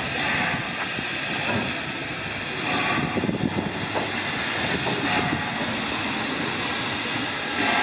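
Steam locomotive RX 207, a South Australian Railways Rx class 4-6-0, running with its train: a steady hiss of steam and rail noise, with a few brief louder rushes.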